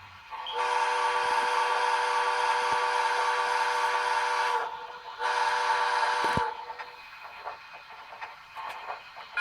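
Steam whistle from the sound system of an MTH HO-scale Virginian Triplex model locomotive, played through its small onboard speaker: one long steady blast, then a short one.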